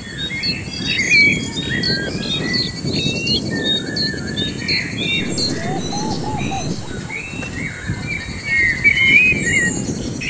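Many small birds chirping and twittering in quick, irregular calls, over a steady low rumble.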